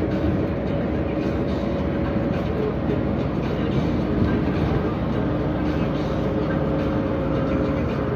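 Cabin noise of a NEFAZ 5299 city bus under way, heard from inside: the steady drone of its Cummins ISBe six-cylinder diesel and Voith automatic gearbox, with a constant hum at two pitches over road and body noise.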